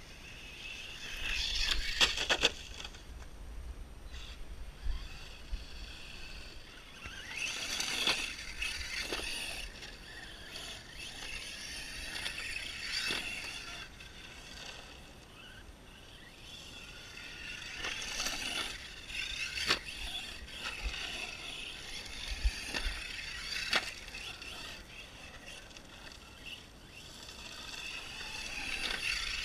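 Arrma 6S brushless short-course RC truck driving on a dirt track: the electric motor's high whine swells and fades several times as it accelerates and passes, with sharp clicks and knocks from the dirt and gravel.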